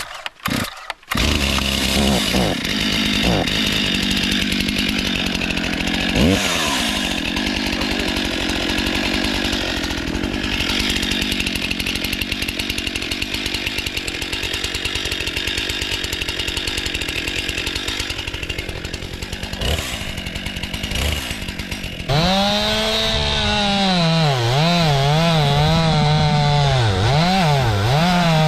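Stihl MS 261 two-stroke chainsaw catching about a second in after the starter is pulled, then running at high revs in the cut. From about 22 s in it is louder and its pitch dips and wavers again and again as it bogs under load; the owner calls the saw really struggling and suspects the chain is not filed well.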